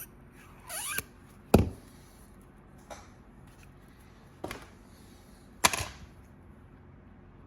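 Small tools and phone parts handled on a work surface: a brief squeak just before the first second, then a few separate sharp clicks and taps, the loudest about a second and a half in and again near the end.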